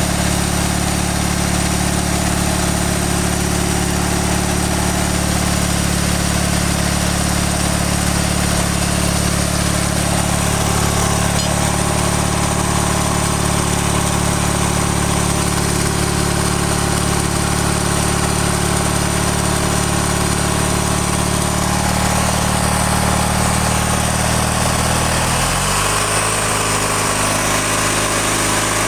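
Stripped-down riding mower engine running steadily at idle, with a brief change in engine speed near the end.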